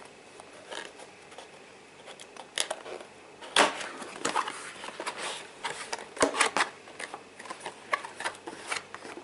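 Cardboard box being opened by hand: irregular scrapes, rubs and light taps of card on card as the box slides and its lid flap is lifted, the loudest scrape about three and a half seconds in.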